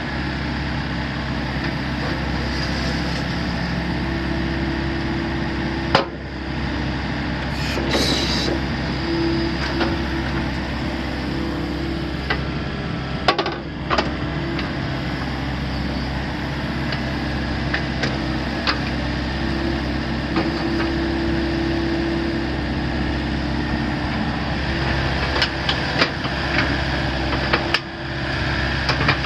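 Volvo ECR88D compact excavator running steadily while its boom, arm and bucket are worked and it swings, with a hydraulic whine that rises in and out under load. Several sharp metallic knocks come from the working gear.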